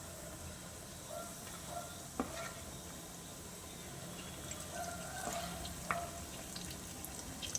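Banana paniyaram batter frying in hot oil with a faint, steady sizzle and scattered crackles, plus a couple of sharp clicks about two seconds in and near six seconds.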